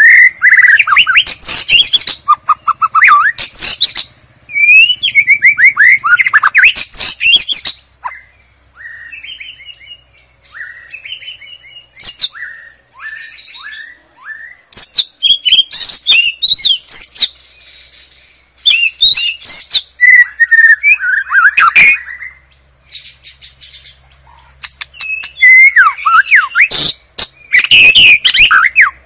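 White-rumped shama singing: loud phrases of rapid, varied whistles and trills separated by short pauses. A quieter run of short falling notes comes about a third of the way through.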